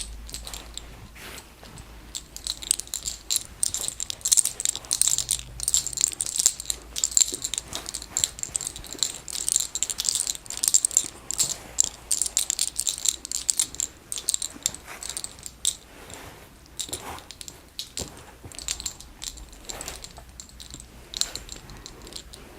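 Hands massaging and working through a person's hair, a dense crackling rustle full of small rapid clicks. It is busiest in the first half and thins out toward the end.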